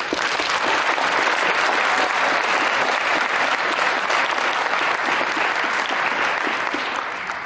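Audience applauding, starting suddenly and tapering off near the end.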